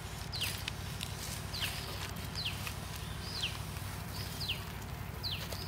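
A bird calling over and over: a short high whistle that slides quickly downward, about once a second, over a low steady rumble.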